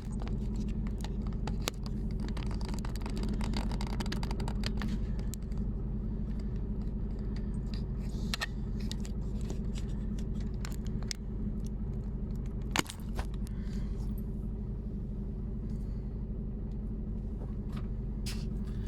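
Mercedes-Benz Actros truck's diesel engine running steadily at low revs while the truck is eased into position, with scattered light clicks and one sharp knock about thirteen seconds in.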